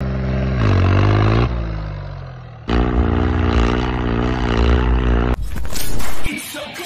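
Modified tractor's engine revving hard: it climbs in pitch about half a second in and dies away, then revs again high and wavering. About five seconds in it cuts abruptly to a noisy, clicky sound.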